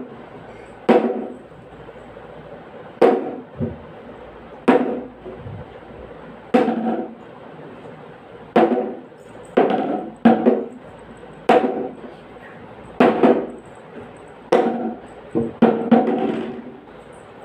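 Plastic toy cricket bat knocked against a tiled stone floor: about a dozen knocks at uneven intervals of one to two seconds, each ringing briefly.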